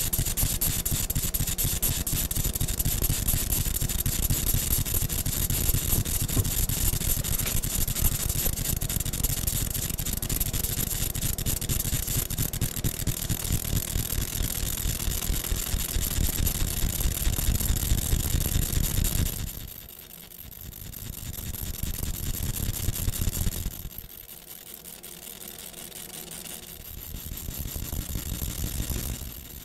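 Laser engraver's galvo scanning head buzzing as it marks a copper coin. The buzz drops away sharply twice in the last third, each time coming back gradually.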